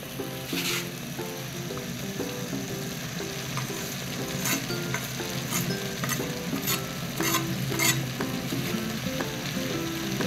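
Chopped ugu leaves scraped from a wooden board into a pot of simmering palm-oil rice and stirred in with a wooden spoon: several sharp scraping strokes over a steady hiss from the hot pot.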